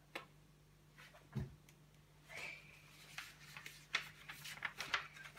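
Faint handling noises in a small room: scattered light clicks and taps, a soft thump about a second and a half in, and brief rustles.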